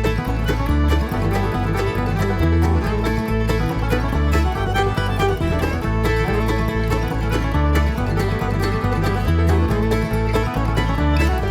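Background bluegrass music: banjo and guitar over a steady bass beat.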